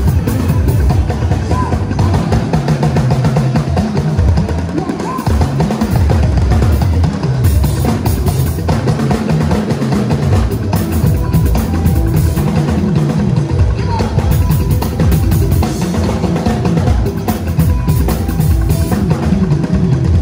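Live band playing a West African groove, with a drum kit's bass drum and snare driving a steady beat.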